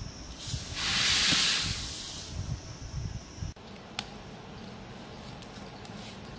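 Granulated sugar poured from a steel plate into a pot of water, a hissing rush lasting about two seconds. After a sudden cut, a wood fire burns under the pot with a few faint crackles.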